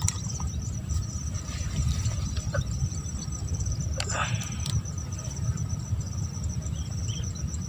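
Insects, cricket-like, keeping up a steady, fast-pulsing high trill over a low, even rumble.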